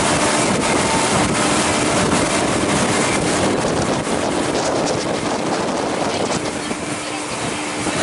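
Small passenger motorboat running at speed: a steady engine drone under the rush of water along the hull and wind on the microphone.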